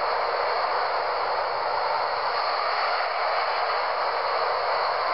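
Hurricane-force wind blowing around a high-rise building, a steady rushing noise played back through laptop speakers.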